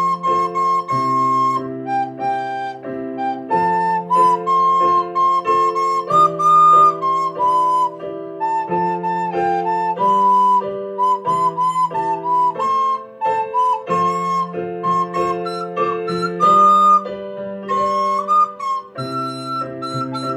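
Soprano recorder playing a melody in the range around 1 kHz, with short, even phrases, over a backing track of sustained chords and a bass line.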